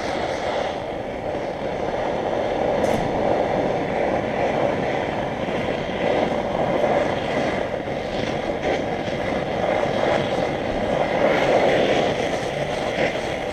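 Gas torch flame burning steadily with an even rushing roar, heating a welded steel nut to temper and colour it before an oil quench.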